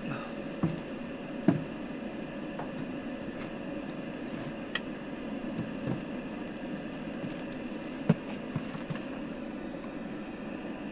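Scattered knocks and taps as things are handled inside the back of a camper van, the sharpest about one and a half and eight seconds in, over a steady background hum.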